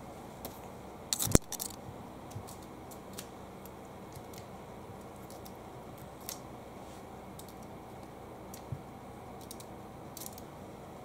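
Light clicks, taps and scratches of a cat playing on a wooden floor, paws and claws against the boards and the ribbon wand toy. A quick cluster of sharp clicks about a second in is the loudest, with scattered fainter ticks after it over a steady faint hiss.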